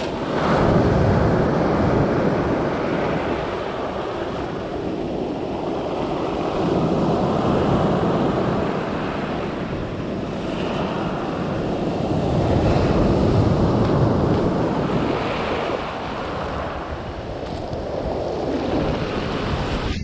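Small waves breaking and washing up over a pebble beach, the surf swelling and ebbing every few seconds.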